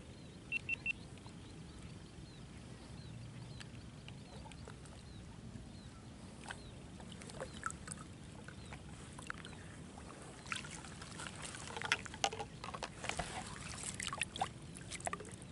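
Faint water lapping and dribbling, with scattered small clicks and knocks that grow busier over the last five seconds. A quick three-note chirp sounds about half a second in.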